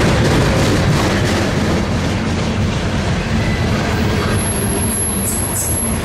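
Train passing close by: a steady, loud rumble of wheels on rail with a low hum underneath. A thin high whine comes in near the end.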